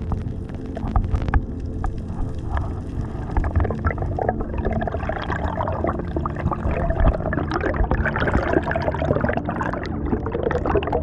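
Water sloshing and gurgling around the microphone, busiest in the middle stretch, over a steady low hum.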